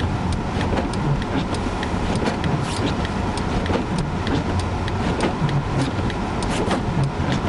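Inside a car's cabin driving slowly through a blizzard: a steady rumble of engine, tyres and wind, with many scattered light ticks.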